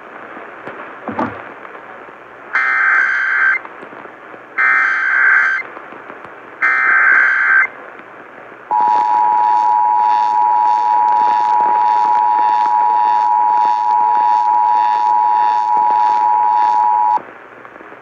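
Emergency Alert System activation heard over AM radio through the radio's speaker. It starts with three short bursts of SAME header data, about two seconds apart, then the two-tone attention signal is held steady for about eight seconds and cuts off. The alert announces a severe thunderstorm warning.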